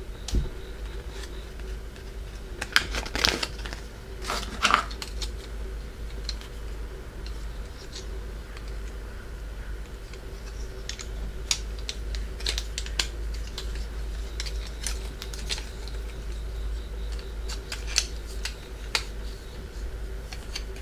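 Hard plastic pieces of a Tamagorasu gashapon capsule toy clicking and snapping as they are handled and fitted together, in scattered sharp clicks. Two louder scraping bursts come about 3 and 4.5 seconds in, and a steady low hum runs underneath.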